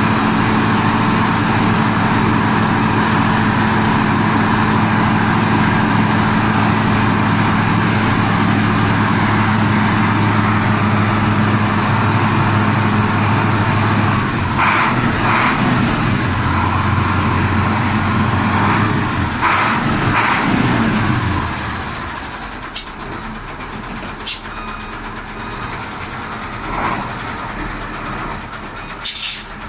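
KAMAZ dump truck's diesel engine running steadily at idle, with several short hisses in its second half. About two-thirds of the way through the engine sound falls away, leaving a quieter hiss and a couple of sharp clicks.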